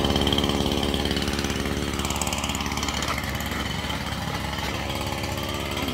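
A small engine running steadily, an even low hum with no change in speed.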